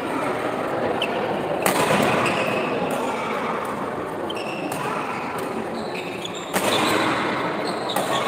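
Badminton rally in a large sports hall: several sharp racket strikes on the shuttlecock at uneven intervals over a steady background of crowd noise.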